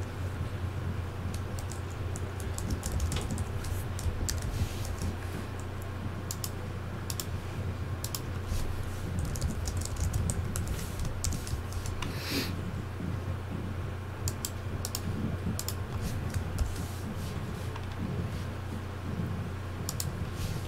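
Typing on a computer keyboard: keystrokes in irregular runs and pauses, over a steady low hum.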